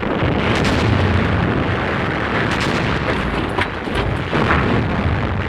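Artillery and gunfire: several sharp shots and blasts over a continuous rumble of battle noise.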